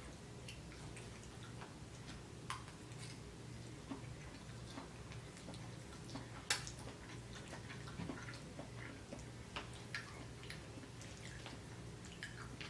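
Quiet eating sounds: chewing and mouth noises with scattered small clicks, one sharper click about six and a half seconds in, over a faint steady low hum.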